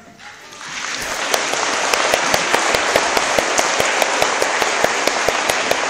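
Audience applause for a children's choir, building within the first second or so from near quiet into steady clapping, with a run of louder, sharper claps close by, about three a second.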